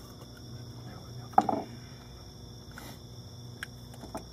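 Steady trilling of night insects with a low hum beneath. About a second and a half in comes one short, loud pitched sound.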